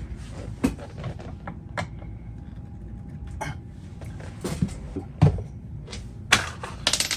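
Hand work on a wooden rack: irregular clicks and knocks of tools and wood being handled. The loudest knocks come a little past five seconds and a little past six seconds, with a quick cluster of clicks near the end.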